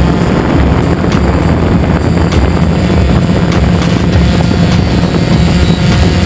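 Multirotor camera drone's motors and propellers, heard from the onboard camera: a loud, steady buzzing hum, with wind noise on the microphone.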